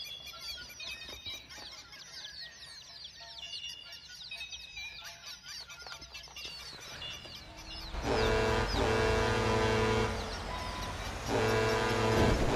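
Many small birds, such as chicks, cheeping in a dense, rapid chorus of short falling peeps. About eight seconds in, two long, loud, steady tones cut in, the second about three seconds after the first.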